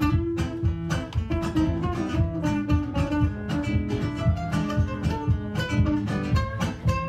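Two acoustic guitars playing a gypsy-style instrumental passage together, with quick plucked notes and strummed chords.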